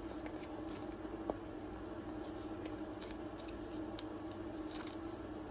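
Faint clicks and scrapes of packaging being handled and opened, over a steady hum.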